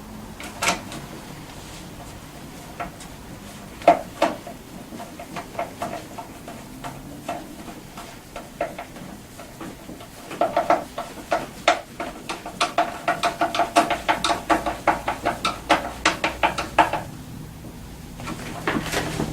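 Hand tool clicking as screws are driven into a scooter's front fender. There are scattered clicks and knocks at first, then a steady run of clicking at about four clicks a second for some seven seconds, starting about ten seconds in.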